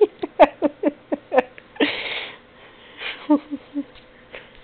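A cat right at the microphone making a quick run of short sounds, about five a second, falling in pitch. About two seconds in there is a short burst of noise, then a few more short sounds.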